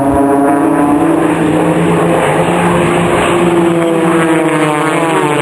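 Propeller aircraft flying past, a loud, steady engine drone whose pitch slowly rises and falls as the aircraft move.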